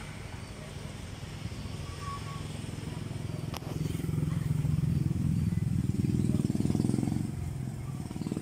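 A small engine running and passing by, louder from about four seconds in and fading after about seven seconds.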